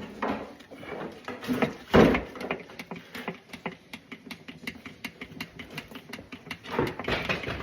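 A fast, irregular run of light clicks and taps, with a heavier knock about two seconds in.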